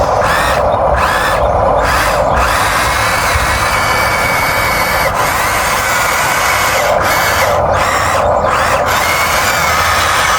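Electric motors and plastic gearboxes of remote-controlled construction models whirring continuously, a drill-like whine whose pitch shifts slightly as the machines work, with brief drops in the high whine several times.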